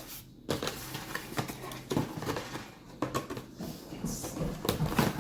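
Packaging being handled and opened by hand: scattered taps, knocks and rustles of a cardboard box and plastic, about half a dozen over a few seconds.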